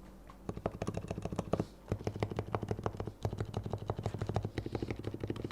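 Leopold FC660C Topre electrostatic-capacitive keyboard, fully lubricated, being typed on quickly: a rapid run of keystrokes starting about half a second in, with two brief pauses.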